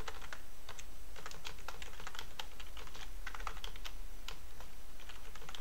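Computer keyboard typing: a quick, irregular run of key clicks as a terminal command is typed, over a low steady hum.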